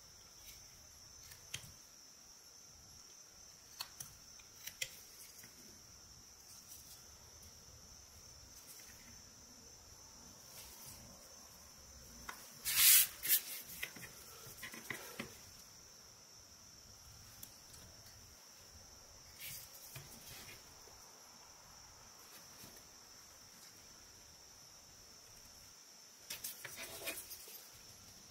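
Whittling knife cutting and paring eastern white pine: sparse small clicks and short scraping cuts, with a louder cluster of cuts about halfway through and another near the end. A faint steady high-pitched whine sits underneath.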